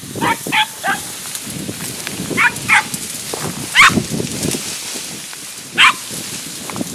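Podenco Andaluz hunting hound yelping in short, high calls that bend in pitch, typical of a hound giving tongue on a rabbit: three quick yelps, a pair about two seconds later, then two single yelps.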